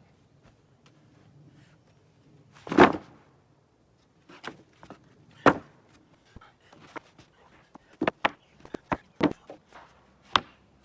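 Wooden boards knocking and clacking together as they are handled. There is one loud clack about three seconds in, another about halfway through, and a quick run of sharper clacks near the end.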